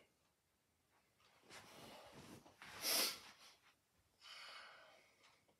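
A man's breathing and rustling close to the microphone as he moves in near it, with a short sharp breath about three seconds in that is the loudest sound.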